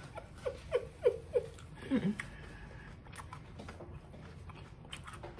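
A woman laughing under her breath, a run of about five short falling 'hm' chuckles and one more about two seconds in, then quiet chewing of food with small wet mouth clicks.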